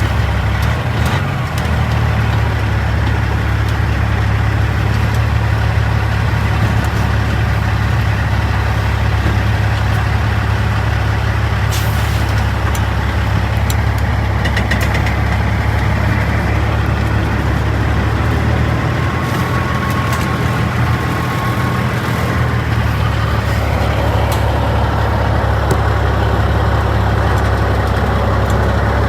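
Peterbilt 379's Caterpillar C15 diesel running steadily at low idle while the truck backs slowly into a dock, with a short hiss about twelve seconds in.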